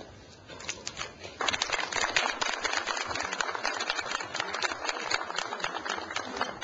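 Small crowd applauding. A few scattered claps come first, then full applause breaks out about a second and a half in and goes on steadily.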